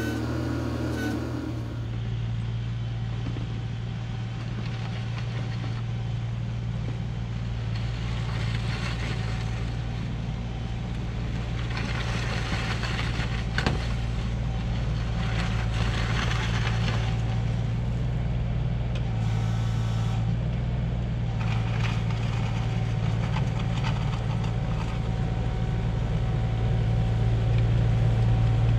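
Komatsu PC16 mini excavator's diesel engine running steadily as the machine pushes snow with a front-mounted plow, with stretches of louder scraping and rushing noise from the blade working the snow. The engine grows louder near the end as the machine comes closer.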